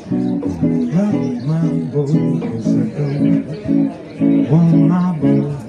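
Guitar playing short, chopped chords in a steady reggae rhythm.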